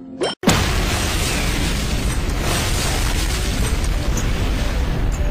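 Loud explosion: a quick rising sweep, a split second of silence about half a second in, then the blast, which rolls on as a dense, steady rumble.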